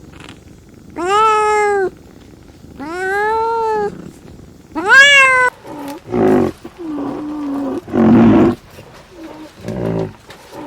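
Animal calls: three drawn-out high-pitched cries in the first half, each rising and then falling in pitch. Several shorter, lower, rougher calls follow.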